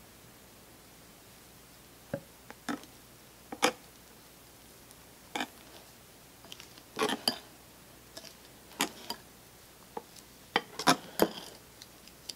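Wire balloon whisk clinking and tapping against a glass mixing bowl while meringue is mixed into thick matcha batter: scattered, irregular sharp clicks with quiet gaps between.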